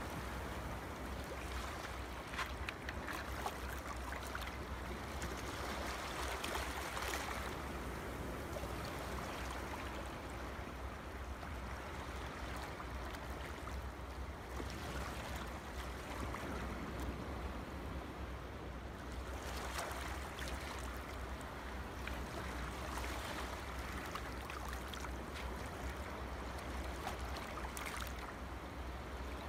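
Steady background hiss with a constant low hum beneath it, and a few faint taps from card being handled on a table in the first few seconds.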